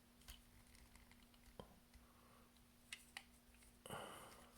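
Faint clicks of hard plastic toy parts being handled as the robot's head is slid off, with a short scraping rustle near the end, over a low steady hum.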